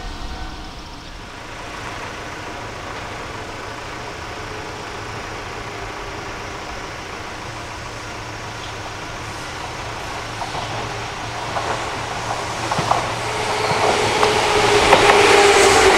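Shizuoka Railway 1000 series electric train approaching and passing close. It grows louder from about ten seconds in, with clicks of the wheels over rail joints, and a steady whine rises over the running noise near the end.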